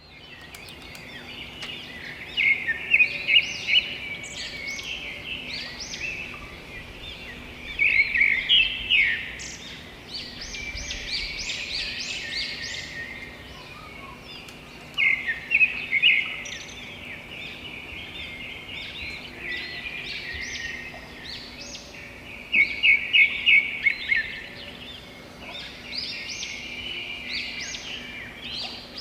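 Several birds calling and singing together. Loud runs of rapid chirps come back about every six to seven seconds over steady, quieter chatter.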